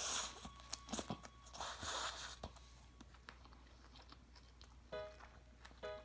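Close-miked chewing and crunching of food in a few short bursts, then quieter. Soft background music notes come in near the end.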